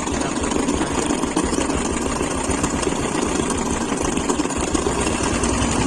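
Royal Enfield Classic 350 single-cylinder engine idling steadily. Oil flow to its cylinder head is weak, which the mechanic is checking as the cause of its head (tappet) noise.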